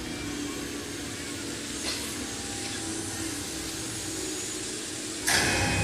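Musical fountain jets and water-screen mist spraying with a steady hiss, which gets louder about five seconds in.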